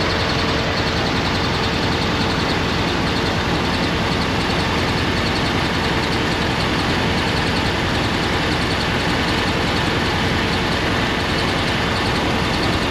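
Running engine heard through a mechanic's stethoscope as a steady, dense mechanical noise with a light ticking, which the mechanic takes for lifter noise: a sign of a valve-train problem such as a sticking lifter.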